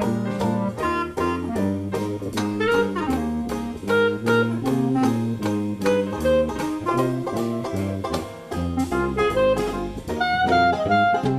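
1920s-style Dixieland/New Orleans jazz playing as background music, with horns over a steady, upbeat beat.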